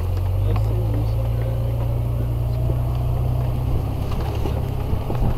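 1999 Jeep Cherokee Laredo driving, heard from inside the cabin: a steady low engine and road rumble with faint rattles.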